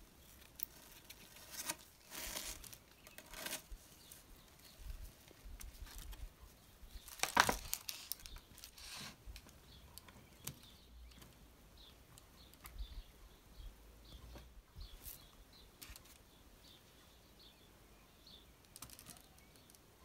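Hands handling fruit packaging: a plastic mesh fruit net cut with scissors and pulled open, rustling and crinkling in short bursts, with the loudest rustle about seven and a half seconds in. Later only faint light taps as fruit is set into a wicker basket.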